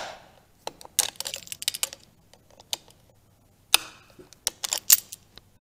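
Vise grips (locking pliers) clamping down on a 530 O-ring motorcycle chain's master link, pressing the outer side plate onto the pins against the O-rings: a series of sharp clicks and snaps in several clusters.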